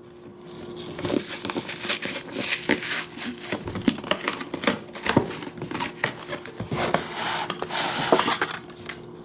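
A toy's packaging being opened by hand: cardboard and plastic rustling and crinkling, with many small clicks and knocks.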